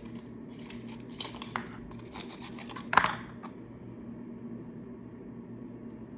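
Packaging rustled and torn open by hand, with scattered crinkles and scrapes and one sharp crackle about three seconds in, then quieter. A steady low hum runs underneath.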